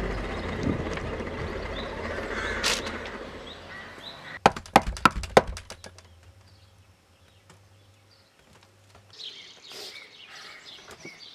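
A lingering music sting fades away, then a quick series of about six sharp knocks on a wooden door. Birds chirp faintly near the end.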